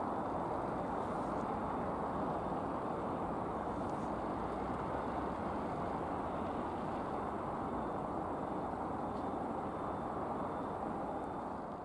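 Steady, even roar of a Boeing 737-800's CFM56 turbofan engines as the airliner comes in to land, mixed with street traffic.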